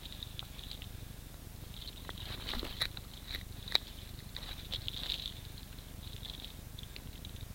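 Low, steady rumble of wind and handling on a gun-mounted camera's microphone as the shotgun is carried and swung, with faint high chirping and a few light clicks and knocks, busiest in the middle.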